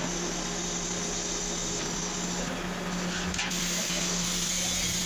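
Engine lathe running and turning a large steel crusher shaft: a steady motor hum under an even hiss.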